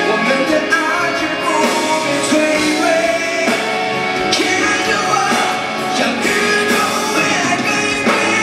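Male vocalist singing live into a microphone over full band accompaniment, a loud, steady pop-rock song.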